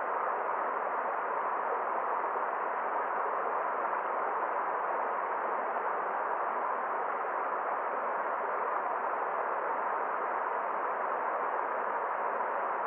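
Forest stream flowing: a steady, even rush of water that does not change.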